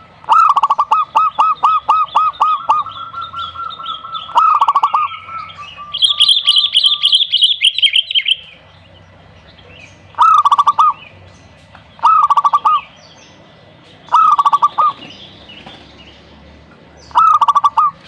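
Zebra dove (perkutut) cooing: a fast run of staccato coos at the start, another short burst, then four short phrases of coos about two to three seconds apart. A higher-pitched bird chirping and warbling joins for a couple of seconds near the middle.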